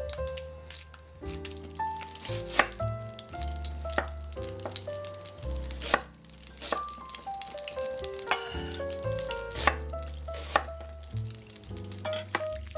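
Chef's knife chopping an onion on a wooden cutting board: irregular sharp knocks of the blade on the board, over background music with a bass line.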